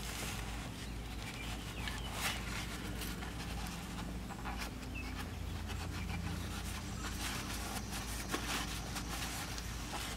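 Blue shop towel rubbing and scrubbing oily grime off the engine block at the oil cooler line port, a run of rustling wipes over a steady low hum.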